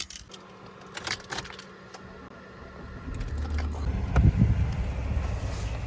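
Reflectix insulation crinkling and clicking as it is handled and pulled down inside the truck. About halfway through, a low steady rumble sets in, with a thump shortly after.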